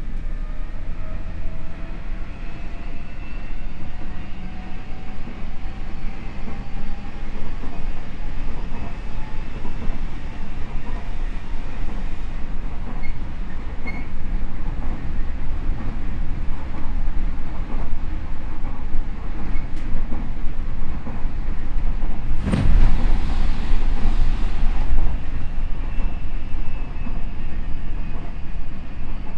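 Odakyu 5000 series electric train with a Mitsubishi SiC inverter, heard from inside the car while running: steady wheel-on-rail rumble, with the traction motor whine climbing slowly in pitch over the first several seconds as the train gathers speed. About 23 seconds in, a brief surge of louder noise rises over it.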